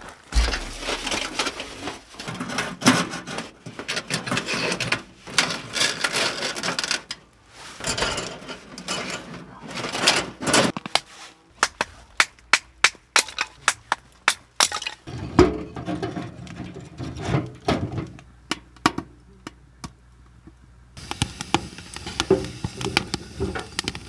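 Tent fabric rustling, then a quick series of sharp cracks and knocks as thin kindling sticks are split and broken. Near the end, a wood fire crackling in a small camping wood stove.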